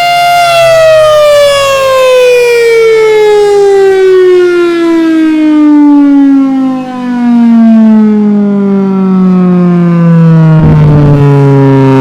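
Federal Signal Thunderbolt civil defense siren winding down. A loud, steady tone falls slowly and continuously in pitch after about half a second, as the siren slows. A brief low rumble comes near the end.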